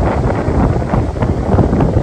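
Strong gusting wind buffeting the microphone: a loud, low, unsteady rushing noise.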